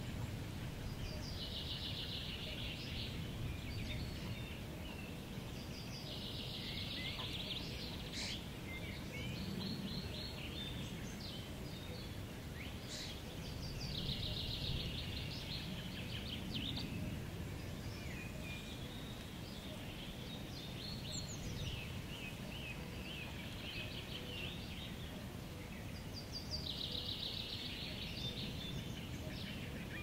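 Wind rumbling on the microphone under songbirds singing. One bird repeats a fast, high trilled phrase about four times, with scattered shorter calls from other birds between.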